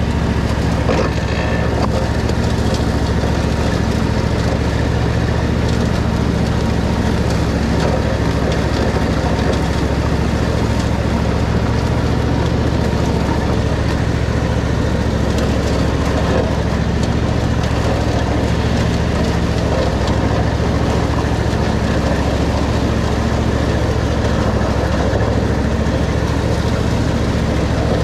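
Riding lawn mower's engine running steadily under load as the mower cuts through tall grass and weeds.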